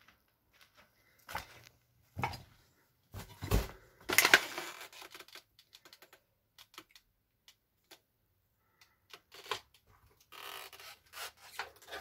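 Irregular footsteps crunching and scraping on a gritty, debris-strewn floor, with sharp knocks. A heavy thump comes about three and a half seconds in, followed by a second-long gritty scrape.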